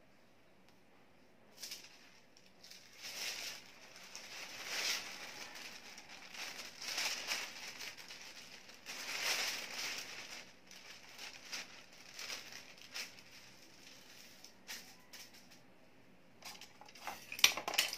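Thin kite sail rustling and crinkling in bursts as the kite is handled, lifted and laid back on the floor. A few sharp clicks near the end.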